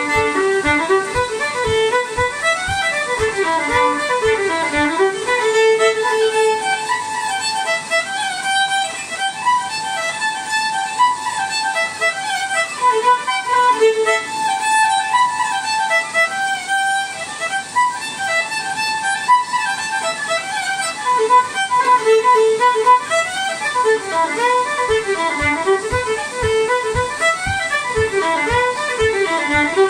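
Solo fiddle playing a lively fiddle tune, bowed notes running on without a break. A regular low thump about twice a second, in time with the tune, comes in the first few seconds and again over the last five seconds, with rain on the conservatory roof behind.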